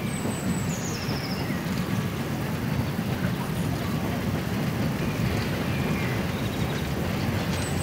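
Saxon I K narrow-gauge steam locomotive and its short train rolling slowly in, a steady low rumble with no distinct exhaust beat. A few short high chirps come near the start and again near the end.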